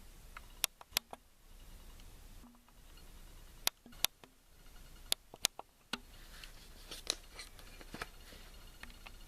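Plastic Lego bricks being handled and snapped together: a dozen or so sharp, short clicks at irregular intervals, with faint rustling of loose pieces.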